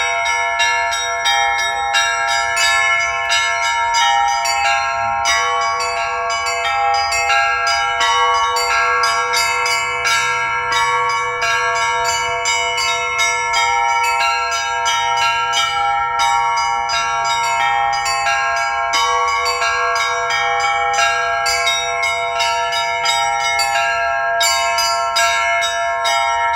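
A set of bells being rung in a fast, continuous run of strikes, their tones ringing on and overlapping. The player afterwards judges this attempt at the pattern as not coming out well.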